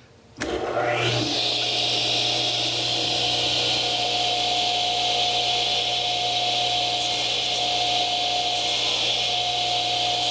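Radial arm saw switched on: the motor and blade spin up within about a second, then run at a steady speed with a steady whine and hiss.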